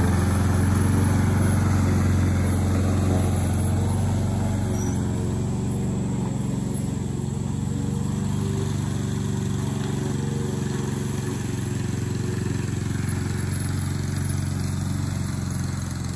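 Lawn mower engine running steadily while mowing, gradually getting fainter. The grass catcher has just been strapped down so it stays on.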